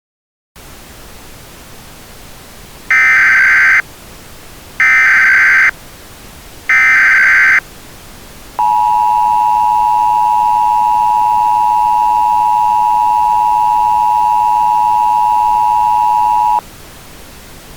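Emergency Alert System tones: three short digital SAME header bursts about two seconds apart, then the two-tone EAS attention signal held steadily for about eight seconds, over a faint hiss. The header bursts carry the alert's coded data, and the attention tone announces that an emergency message follows.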